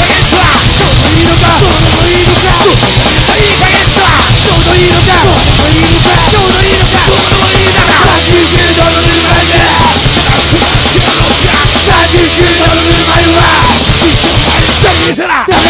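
Japanese hardcore punk song: loud, fast distorted guitars, bass and drums, with bending guitar lines over the top and a short break near the end.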